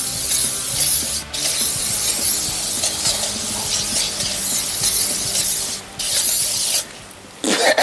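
Aerosol can of insect spray hissing in long bursts, broken twice for a moment, then stopping shortly before the end.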